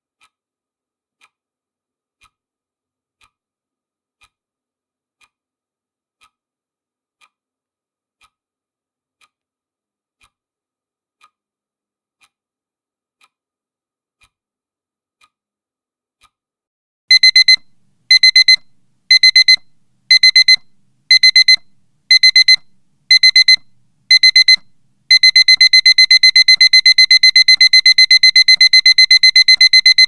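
Faint clock ticking once a second, then about 17 seconds in a loud, high digital alarm-clock beeping starts as the countdown timer reaches zero: eight short bursts of rapid beeps about a second apart, then continuous rapid beeping from about 25 seconds on.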